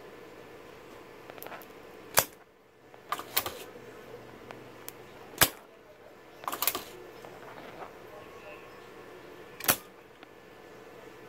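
Spring-loaded desoldering pump (solder sucker) firing with sharp snaps as it sucks molten solder off a MOSFET's pins, along with smaller clicks from the pump being handled and re-cocked. There are three loud snaps, a few seconds apart.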